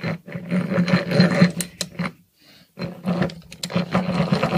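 Hand drill turning a twist bit into hardwood, a fast rattling whirr that stops briefly about halfway and then starts again.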